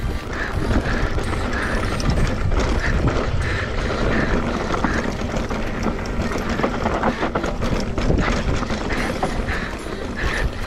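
Mountain bike riding fast down a dirt trail: a steady rush of wind on the chest-mounted camera, with tyres on dirt and many quick clicks and rattles from the bike.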